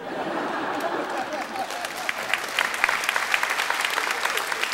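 Theatre audience applauding: a steady, dense patter of many hands clapping that starts suddenly, with a few voices in the crowd during the first second or so.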